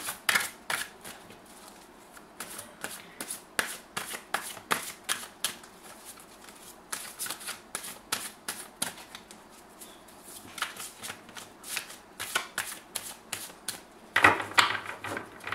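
A deck of tarot cards being shuffled by hand: a long run of quick, irregular card slaps and clicks, with a louder flurry near the end.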